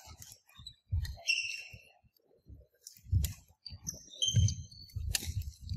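Badminton doubles rally: sharp clicks of rackets striking the shuttlecock, with shoes squeaking briefly on the wooden court floor twice and feet thudding as the players move.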